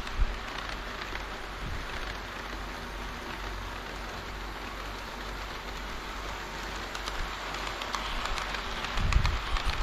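HO-scale model train running on layout track: a steady rolling hiss with faint clicks, and a low thump about nine seconds in.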